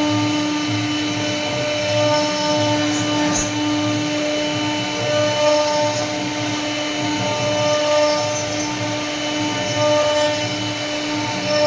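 CNC wood router spindle running steadily with a constant whine, carving wood.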